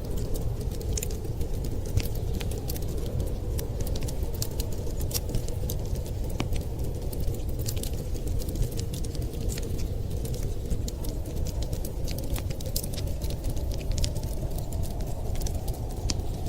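Wood fire crackling with irregular sharp pops and ticks over a steady low rumble of blizzard wind.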